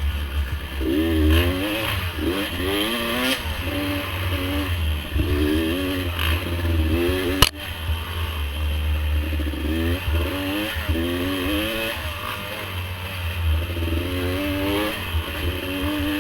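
Dirt bike engine revving up and down again and again as it is ridden, over a heavy low rumble, with one sharp knock about halfway through.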